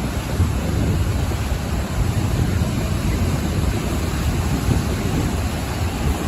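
Ocean waves breaking and washing onto a shore: a steady rushing surf with a deep low rumble, no single crash standing out.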